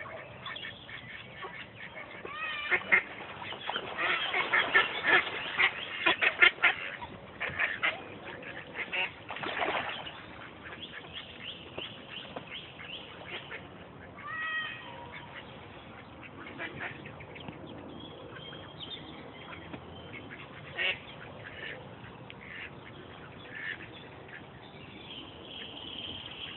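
Ducks calling: a dense run of loud, rapid quacking calls about 2 to 7 seconds in, a rasping call near 10 seconds, then scattered quieter calls, with thin high peeps coming and going throughout.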